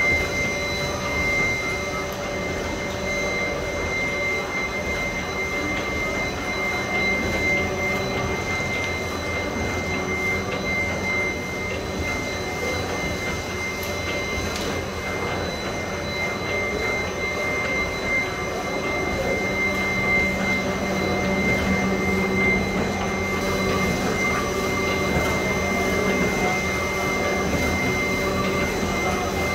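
Roll-fed label printing machine with UV, laminating and die-cutting units running steadily: a continuous mechanical hum with a steady high-pitched whine over it, the low hum growing a little louder about two-thirds of the way through.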